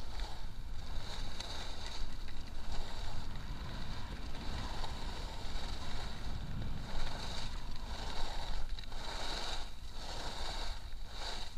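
Skis sliding and scraping over packed snow during a run, with wind buffeting the microphone as a low rumble. The hiss of the skis swells and fades with each turn, coming in quick surges in the second half.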